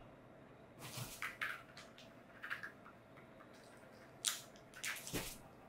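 Pomeranian chewing a soft plush toy: irregular short chewing and squishing sounds, in clusters about a second in and near the end, with one sharper bite a little past four seconds.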